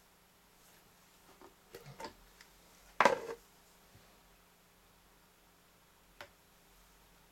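Clear plastic cover of an LED warning light bar being handled and set down: a few light clicks, one sharp plastic clatter about three seconds in, then a single light tick near the end.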